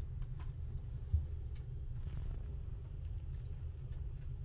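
Quiet library room tone: a steady low rumble with a few faint clicks, and a soft bump about a second in.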